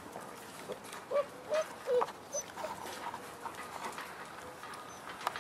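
Six-week-old Boerboel puppies whimpering: a string of about six short, high whines over the first three seconds, with a few light clicks.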